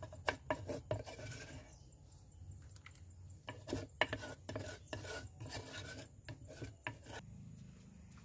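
Pestle grinding and striking in a mortar: a run of sharp scraping strokes in two bursts with a pause of about two seconds between, stopping about seven seconds in.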